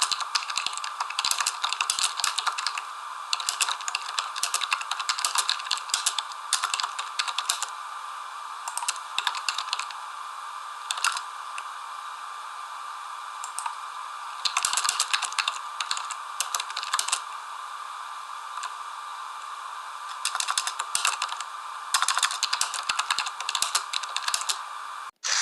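Rapid light clicks and taps in bursts a second or two long, with short pauses between bursts, over a steady background hiss.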